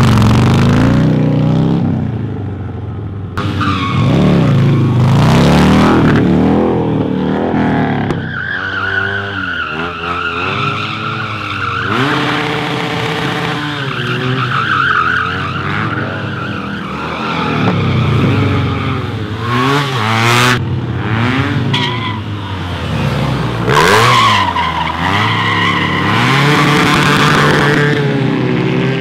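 Motorcycle engine revving hard up and down again and again while the rear tyre spins and slides on asphalt in stunt burnouts and drifts, with tyre squeal through much of it.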